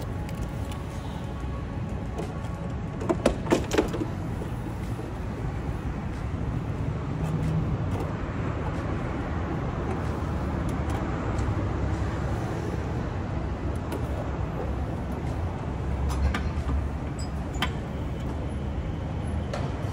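Riding a small motor scooter: steady engine and road noise, with a few sharp knocks about three to four seconds in and again near the end.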